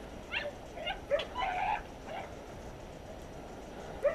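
Podenco hunting dogs yelping in a few short, scattered yips from the scrub, the loudest about a second in and near the end, as they work the cover for game.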